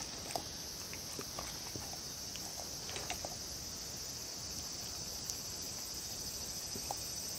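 A dog licking and chewing soft food (tofu) off a wooden board: scattered small wet clicks and smacks, a few a second, over a steady high hiss.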